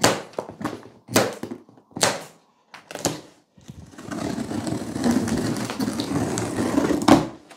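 Scissors cutting through the plastic packing bands on a large cardboard box, with about four sharp snaps roughly a second apart. These are followed by a few seconds of continuous cardboard scraping and rustling as the top of the box is worked open.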